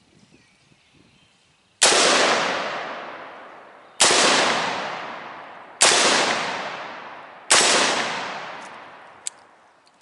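Four single shots from a PSA 7.5-inch AR-15 pistol, spaced about two seconds apart, each followed by a long echo that fades away. A light click follows near the end.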